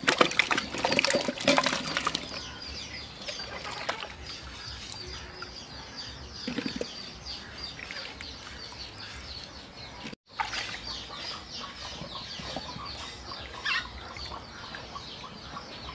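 Water splashing and sloshing in a steel basin as onions, and later tomatoes, are rubbed and washed by hand, with irregular splashes and clinks against the metal. It stops briefly about ten seconds in.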